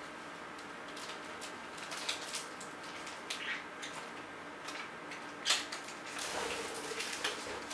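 Scissors cutting through a plastic poly mailer: a string of short, irregular snips with the plastic crinkling. The sharpest snip comes about five and a half seconds in, and a stretch of crinkling follows near the end.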